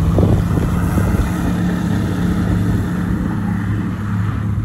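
Light seaplane's propeller engine running steadily with a low, even drone.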